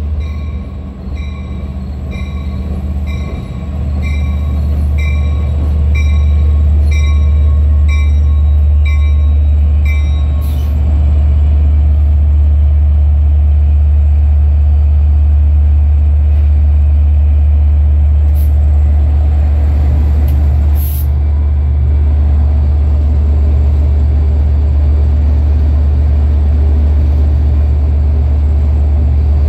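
DE30AC diesel locomotive with an EMD 710 engine running loud and low, its bell ringing steadily about one and a half times a second until it stops about ten seconds in. The engine swells louder around four seconds in and again around twelve seconds as it revs up.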